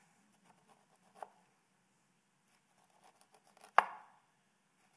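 Chef's knife cutting kernels off an ear of corn on a wooden cutting board: faint scraping and light ticks, with one sharp knock a little under four seconds in.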